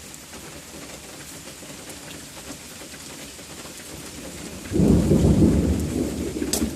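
Steady rain hiss, then a little over four and a half seconds in a loud, low rumble of thunder sets in and keeps rolling.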